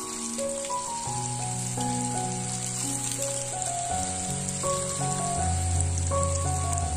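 Water pouring in a thin stream and splashing onto green onions and peeled garlic in a wooden bowl, a steady hiss under background music with a plucked melody and bass.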